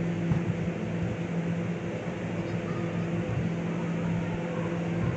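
Steady hum of an air-supported sports dome's blower fans, with a few dull thuds and faint voices from the pitch.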